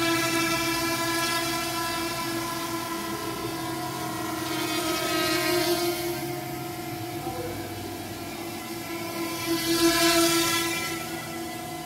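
A steady droning hum of several held tones sounding together, with a rush of hiss swelling up twice, about four seconds in and again near the end.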